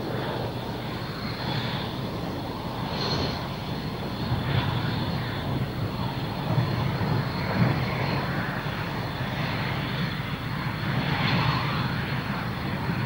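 Saab JAS-39 Gripen's single Volvo RM12 turbofan running at low power as the jet taxis: a steady rush with a thin high whine.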